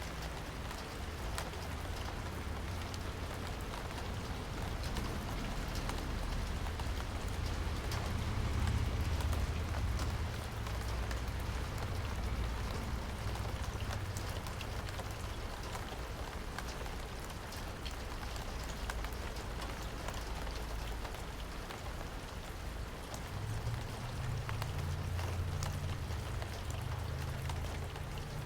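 Steady rain falling, with many separate drop taps close by over a low rumble that swells briefly near the middle and again near the end.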